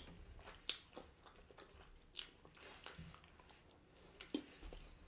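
Faint close-miked eating sounds: chewing of soft roti with oxtail, with four short, wet mouth smacks spread through the moment.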